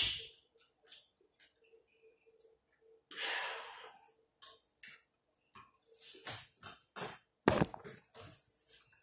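Eating sounds: a metal spoon clicking and scraping against a glass bowl as the last of the beans and rice are scooped up, with chewing between spoonfuls. The clicks come irregularly, and the sharpest one is a little after seven seconds in.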